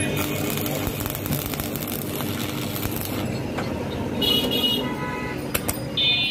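Road traffic with a vehicle horn honking briefly twice, once about four seconds in and again near the end, over a steady engine hum.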